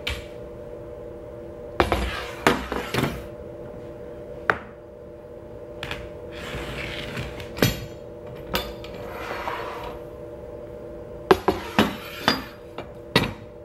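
Steel pipe clamps being loosened, lifted off and set down on a table, clanking and clinking in a dozen or so sharp knocks, with a few brief rustling scrapes between them. A steady hum runs underneath.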